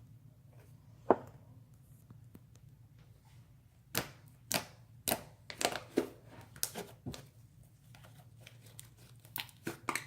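Slime being squished and stretched by hand, giving a string of sharp sticky pops and crackles. There is one loud click about a second in, a cluster of pops in the middle, and a few more near the end.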